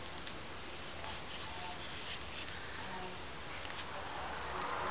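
A steady low hiss of room noise, with a few faint, brief squeaks from newborn border terrier puppies sleeping in a pile.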